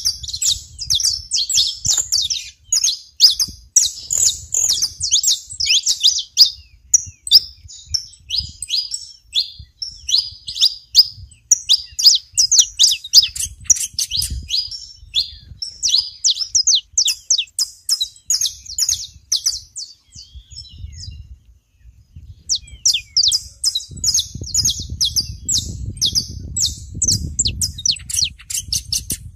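Saffron finches chirping and singing: many sharp, high notes in quick, overlapping succession, pausing briefly about two-thirds of the way through. A low rumble runs under the birds near the end.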